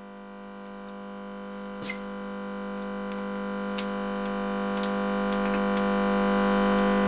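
A steady electrical hum that grows gradually louder, with a few sharp clicks from handling parts at the engine's cylinder head.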